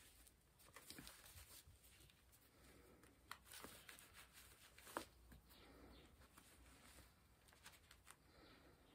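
Near silence with faint rustling and a few soft clicks of hands handling a feather-stuffed cotton sock and twisting a hair elastic around it.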